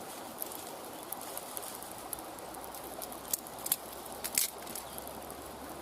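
Small kindling fire catching and crackling, with a few sharp pops about three and a half and four and a half seconds in.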